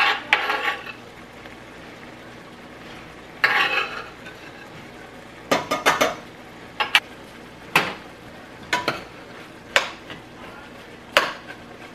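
A utensil stirring and chopping ground beef and onions in a stainless steel pot: a scrape about a third of the way in, then sharp clinks against the pot roughly once a second, over a faint steady sizzle of the meat frying.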